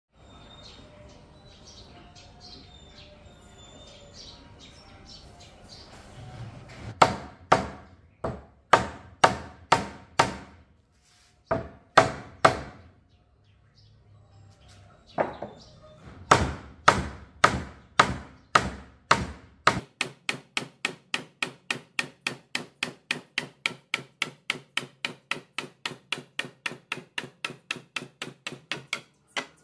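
Hammering on wood: sharp blows in uneven clusters, then a fast, even run of about four or five strikes a second. Birds chirp faintly before the first blows.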